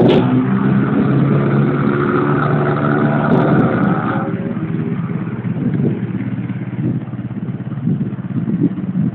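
Motorcycle engine running steadily, louder for about the first four seconds, then settling lower.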